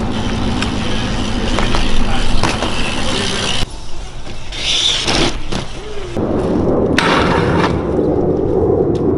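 BMX bikes rolling on pavement, with a few sharp knocks from the bikes, the strongest about seven seconds in.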